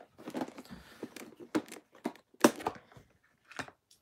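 Someone rummaging by hand among objects: irregular knocks and clicks with light rustling, the sharpest knocks about halfway through.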